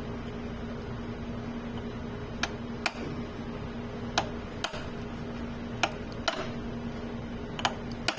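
Light, sharp metal taps, mostly in pairs about half a second apart and repeating every second and a half or so, as the dough mixer's gear assembly is knocked apart. A steady low hum runs underneath.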